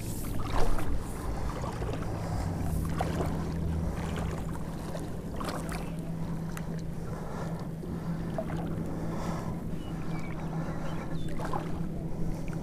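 A steady low motor drone with water splashing now and then, heard while a hooked common carp is fought on a tenkara rod; the strongest splash comes about half a second in.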